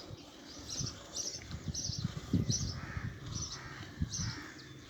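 A bird chirping over and over, short high chirps about twice a second, with low thumps in the middle.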